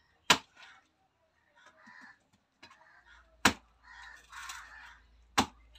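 A heavy curved knife chopping into the tough husks of palmyra palm fruits: three sharp chops about two seconds apart, with softer scraping and rustling of the fruit between them.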